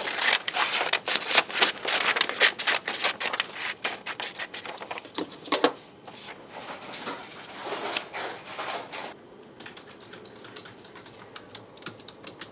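Scissors cutting through a sheet of printer paper, a long run of quick snips and paper scraping for about the first six seconds. Then the paper rustles as the cut-out is handled, and faint computer-keyboard typing starts near the end.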